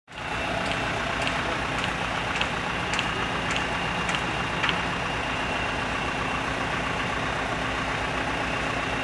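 Diesel engines of truck-mounted mobile cranes running steadily while they lift a steel roof truss. In the first half there is a run of about eight sharp ringing clicks, roughly two a second.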